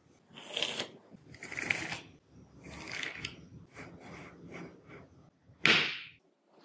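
Small magnetic balls clicking and rattling as they are handled and snapped together. It comes in a few bursts and a run of light clicks, with one sharp, louder snap near the end.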